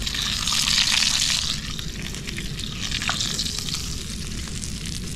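Fish frying, a steady sizzle with crackles that swells louder about a second in and again around three seconds.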